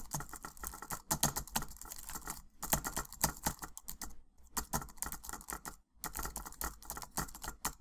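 Keys typing: quick runs of sharp clicks in bursts, with brief pauses between them about every second and a half.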